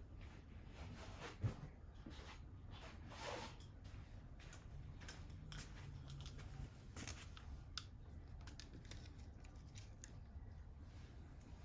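Faint small clicks, taps and rustles of tools and supplies being handled and moved about, with one sharper knock about one and a half seconds in.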